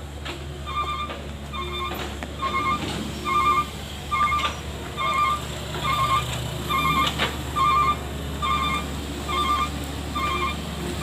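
Mini excavator's diesel engine running with its warning alarm beeping repeatedly, a little over once a second, each beep a short warbling tone. A few sharp metal knocks sound over it.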